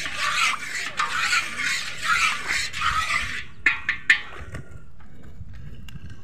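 Hot oil sizzling loudly in a wok as it is stirred with a metal spatula, then a few sharp knocks of the spatula against the wok about four seconds in, after which the sizzle dies away.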